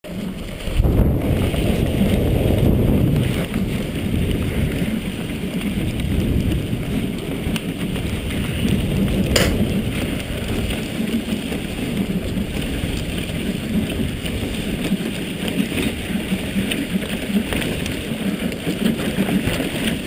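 Dog sled runners sliding over a packed snow trail, a steady rough scraping rumble picked up by a sled-mounted action camera, with one sharp click about nine seconds in.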